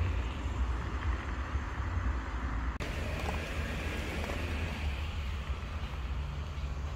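Outdoor street ambience: a steady low rumble with a light hiss over it. It breaks off abruptly for a moment about three seconds in, then resumes.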